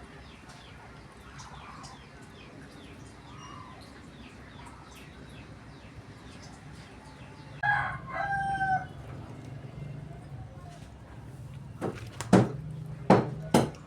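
A rooster crows once, briefly, about eight seconds in, over small birds chirping in quick repeated falling notes. Near the end a few sharp knocks are louder than the crow.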